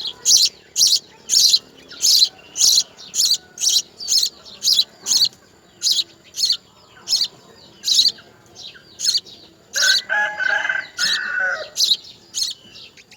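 A baby bird chirping over and over, short high chirps about two a second. About ten seconds in, a lower, longer call joins for about two seconds.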